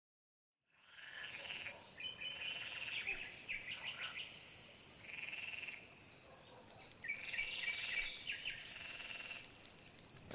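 Summer outdoor ambience fading in about a second in: a steady high drone of insects such as crickets, with chirping and trilling calls over it.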